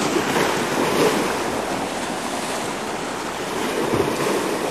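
Small sea waves washing against a rocky shore, a steady rushing surf with gentle swells, mixed with wind on the microphone.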